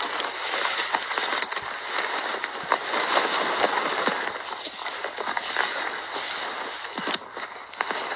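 Footsteps and clothing pushing through dry brush: a continuous scratchy rustle full of small crackles and snaps of twigs and stems, easing off briefly near the end.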